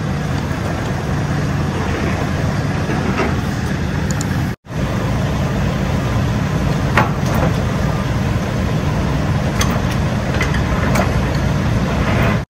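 Semi-truck diesel engine idling with a steady low rumble. A few sharp metallic clicks come from the trailer's landing-gear crank as it is turned to raise the legs.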